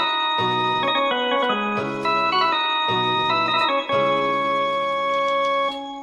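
Casio CTK-2550/CTK-2500 keyboard played in a sustained, organ-like preset tone: a melody over held chords, with low notes coming in and out in a rhythm. Near the end the notes stop and fade away.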